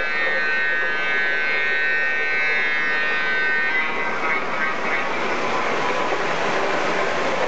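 MTH RailKing O-gauge model trains running past on the layout track. A high whine of several steady tones stops about three and a half seconds in, leaving a steady rumble and clatter of wheels on the three-rail track.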